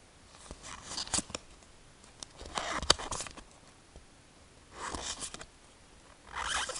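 Pokémon trading cards sliding against one another as they are flipped through one by one: four short rustling swishes about one and a half to two seconds apart, with a sharp tap near the middle.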